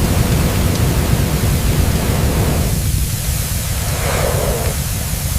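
Sound effect of a vehicle fire burning: a loud, steady rushing roar with a deep rumble underneath, swelling briefly about four seconds in.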